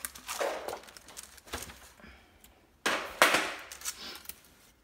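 Paper and glitter cardstock die-cut pieces rustling and sliding as they are handled on a tabletop, in a few short bursts, the loudest about three seconds in.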